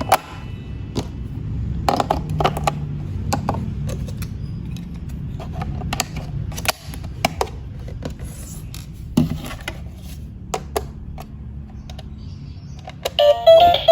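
Clicks and knocks from an electronic baby learning toy as its plastic body and buttons are handled and pressed. Near the end the toy starts playing its electronic beeping tune.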